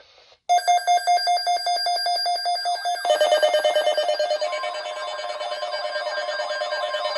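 Electronic emergency-alert alarms going off: a fast, steady pulsing beep starts about half a second in, and about three seconds in a second warbling alarm joins it. A steady higher tone comes in past the middle.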